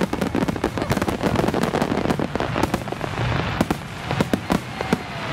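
Fireworks finale barrage: aerial shells bursting in rapid, overlapping bangs, several a second. In the second half the bangs thin out to fewer, separate reports over a hissing crackle.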